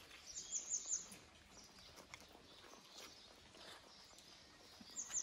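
A small songbird singing a quick phrase of high, falling notes, once near the start and again about five seconds later, over quiet outdoor background.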